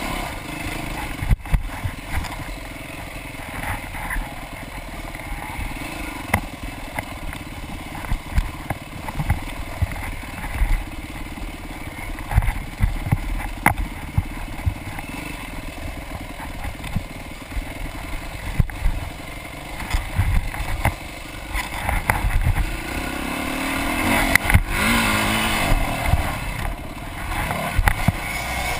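Off-road dirt bike engine running and revving under the rider as it is ridden hard along a rough wooded trail, with frequent short knocks and rattles. It gets louder about three-quarters of the way through as the throttle opens.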